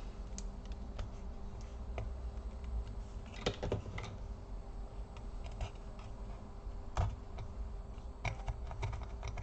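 Scattered light clicks and taps of small hand tools against a laptop's case, irregular and a few in quick pairs, as a hidden screw under a sticker is reached and removed. A steady low hum runs underneath.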